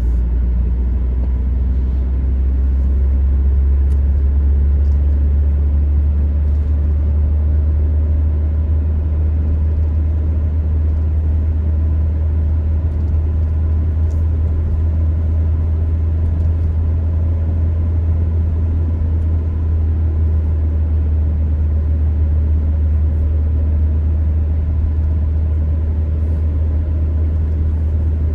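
Car driving at steady road speed: a constant low rumble of tyres and engine, unchanging in pitch.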